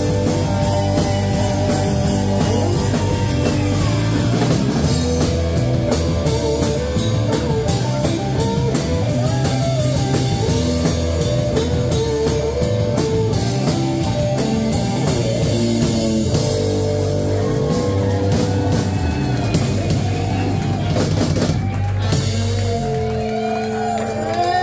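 Live rock band playing: electric guitars and bass over a drum kit.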